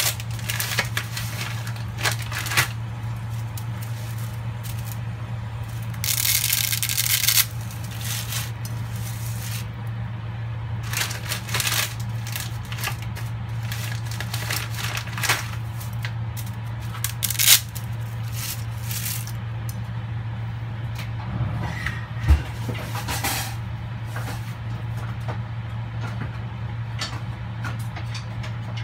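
Water boiling in a stainless steel frying pan, with irregular pops and crackles over a steady low hum. About six seconds in, a louder rush lasting about a second and a half, as dry spaghetti goes into the water.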